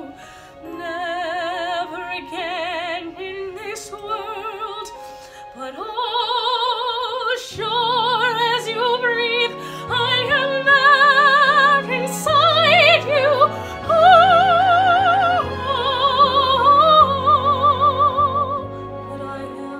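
A woman singing in a classical, operatic style, with wide vibrato on long held notes, over an instrumental accompaniment. Low sustained accompaniment notes come in about seven seconds in, and the singing builds to its loudest, highest held notes midway before easing off near the end.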